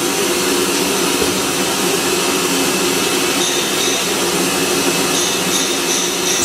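Automatic bottle washing, filling and capping line running: a steady, loud mechanical hum with an even hiss of blowing air. From about halfway, short high-pitched tones come and go several times a second.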